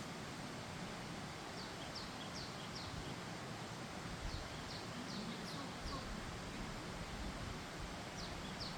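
Steady rush of running water, with a small bird singing a phrase of four or five quick, high, downward-slurred notes three times, the last starting near the end.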